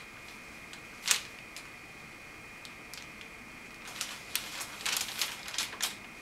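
Handling noise: one sharp click about a second in, then a run of light clicks and rustles from about four seconds, as the patient's head and neck are handled on the treatment table.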